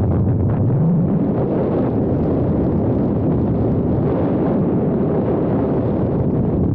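Wind buffeting the microphone of a camera on a moving motorcycle, mixed with engine and road noise, loud and steady; the engine note rises briefly near the start.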